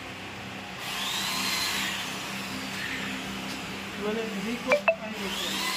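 A power tool's motor whining up and then down, twice, over a steady low hum, with two sharp metallic clinks in quick succession about five seconds in.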